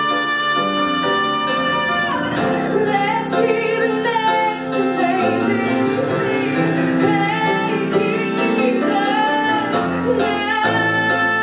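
A woman singing a musical-theatre song with live grand piano accompaniment. She holds a long note at the start, sings shorter phrases through the middle, and starts another long held note near the end.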